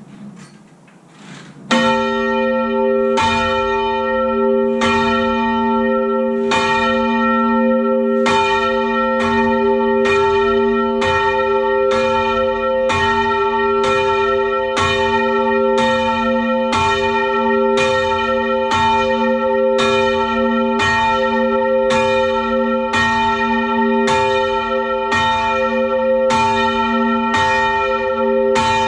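Ring of six church bells (tenor about 10 cwt, in F) rung by a band of ringers. Strokes begin about two seconds in, widely spaced at first, then settle into an even run of about two strokes a second. Each stroke rings on and overlaps the next.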